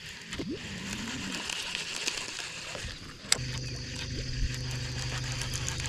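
Electric trolling motor on a bass boat switching on with a click about halfway through, then running with a steady hum and a thin high whine.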